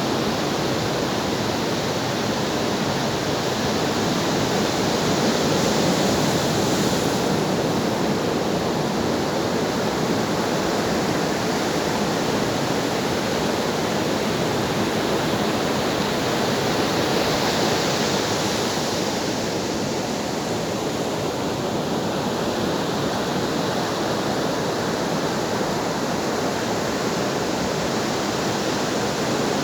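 Ocean surf: a steady rush of waves breaking and washing on the shore, swelling louder about six seconds in and again about eighteen seconds in.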